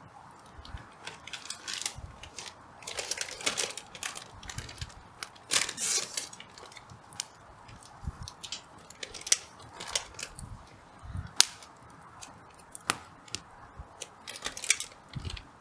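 Wood campfire crackling, with irregular sharp pops and snaps from burning hardwood firewood and a couple of longer crackling stretches about three and six seconds in.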